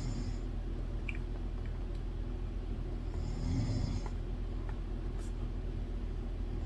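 A sleeping person snoring in slow, regular breaths: one full snore about three seconds in, with the tail of another at the start and the next beginning at the end. A steady low hum runs underneath, with a few faint small clicks.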